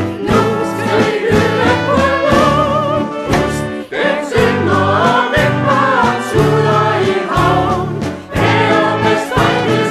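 A choir singing a Danish waltz with instrumental accompaniment: wavering sung melody over a steady, repeating bass line.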